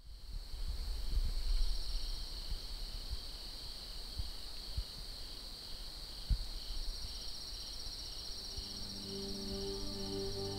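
Crickets trilling in a steady, high, even drone, with a slower pulsed chirp beneath it repeating every half second or so. Low rumbles and a few soft thumps sit under it, and soft ambient music fades in near the end.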